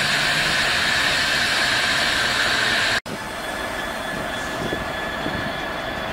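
Class 66 diesel freight train rolling slowly past with a loud, even rumble and rush. About three seconds in the sound cuts abruptly to a second, quieter Class 66 train approaching, with thin, steady high-pitched squeal from the wheels.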